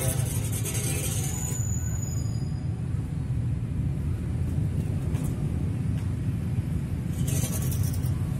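A steady low rumble throughout, with a tent canvas rustling as it is dragged over the ground near the end.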